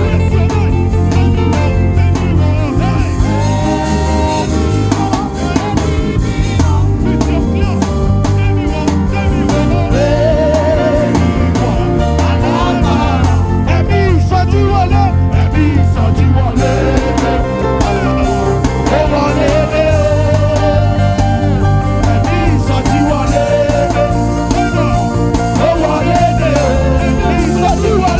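Live worship music: a band with a steady bass line and instruments, and a voice singing over it.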